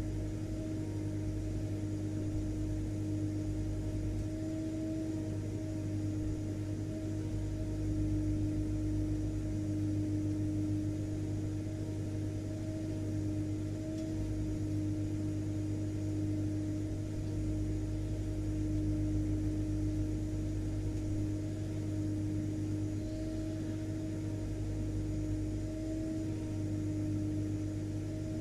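Vacuum cleaner motor running continuously: a steady drone with a low hum and a constant mid-pitched tone.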